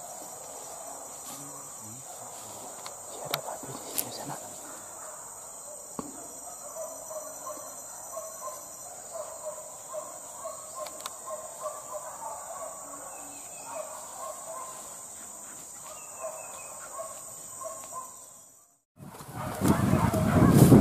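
Tropical forest ambience: insects buzzing in one steady high tone, with a bird calling in a long run of short repeated notes and a few faint clicks like twigs snapping. About nineteen seconds in, it cuts after a brief silence to a loud rushing noise.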